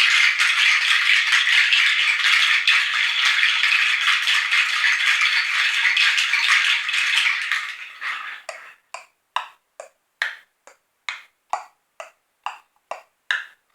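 Hand percussion: a rattle shaken continuously in a dense hiss of rattling, which fades out about eight seconds in. It gives way to a steady run of short, sharp clicking strokes, about two to three a second, like a clock ticking.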